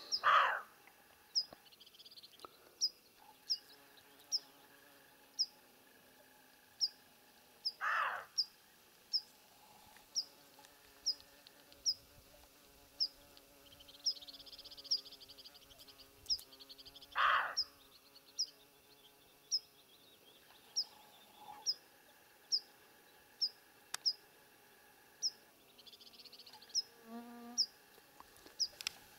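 Siberian roe deer buck barking: three short, harsh barks about eight to nine seconds apart, the loudest sounds, typical of a roe deer alarmed by something it has noticed. Under them a high, short chirp repeats about one and a half times a second.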